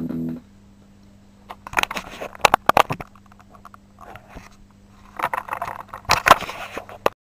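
The last Telecaster chord through a small Fender Champ amp breaks off right at the start, leaving the amp's steady low hum. Two clusters of clicks and scrapes from handling follow, around two seconds in and again from about five to seven seconds, then all sound cuts off.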